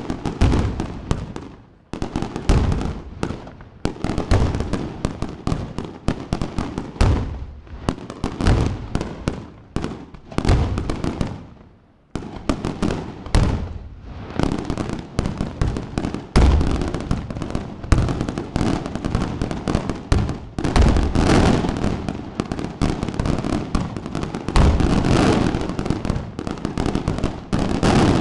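Aerial fireworks display: shells bursting one after another in many sharp bangs, with brief lulls about two and twelve seconds in. In the second half the bursts merge into an almost continuous barrage.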